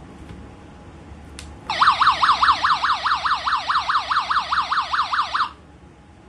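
Carbon monoxide alarm's siren in test mode, sounding a rapid warble that sweeps up and down about four to five times a second for nearly four seconds, then cuts off suddenly. A single click comes just before it starts.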